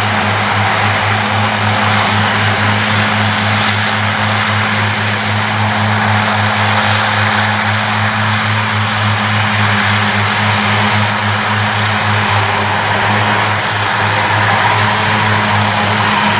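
Claas Cougar 1400 self-propelled mower running steadily while mowing grass: a constant low engine hum under a dense whirring hiss from the spinning disc mowing units, level throughout.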